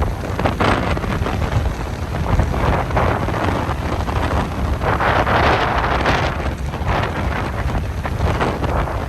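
Strong wind buffeting the microphone over rough surf, with a swell of crashing wave noise about five seconds in.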